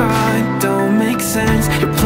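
Background music: a song with held notes over a steady beat.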